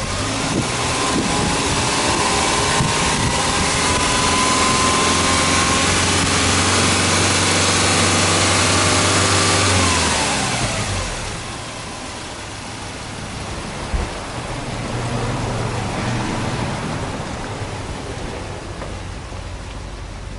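Subaru Legacy 2.5GT's turbocharged EJ25 flat-four engine held at raised revs for several seconds, then dropping back to idle about ten seconds in. It then idles steadily, with a slight swell in revs a few seconds later.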